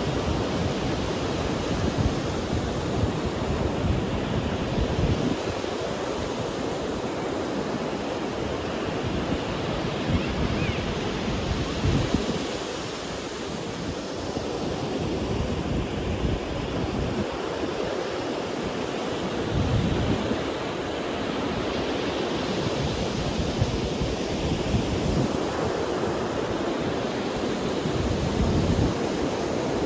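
Ocean surf breaking and washing up on a sandy beach as a continuous rushing noise. Wind buffets the microphone on and off, adding irregular low rumbles.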